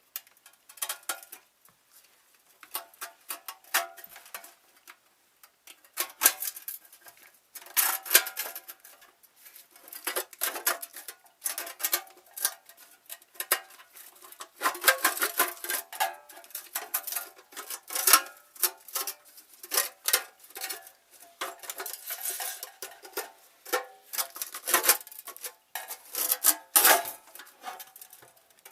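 Metal clinking, knocking and scraping, irregular and busy throughout: tools and metal parts of an X-ray tube head knocking against its metal case as the internals are worked loose.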